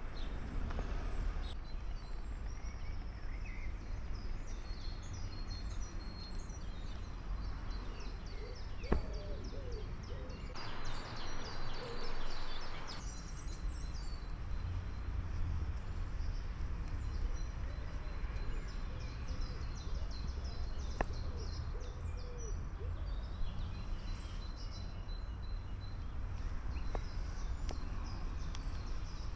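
Songbirds chirping and singing in many short calls over a low steady rumble, with a single click and a brief rush of noise about ten to thirteen seconds in.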